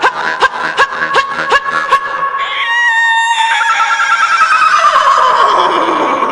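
Rhythmic twangs of a khomus (Yakut jaw harp), about three a second, then a high imitation of a horse's whinny: a wavering call that slides down in pitch over several seconds.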